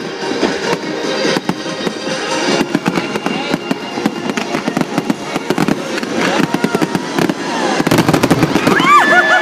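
Aerial fireworks bursting in a rapid run of bangs and crackling over background music, building to a dense barrage near the end. Crowd voices start whooping at the close.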